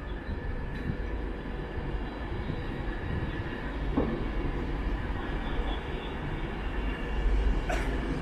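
Avanti West Coast Class 390 Pendolino electric train pulling out of the station, a steady rumble of wheels and running gear. There is a clank about halfway through and another short, sharp sound near the end.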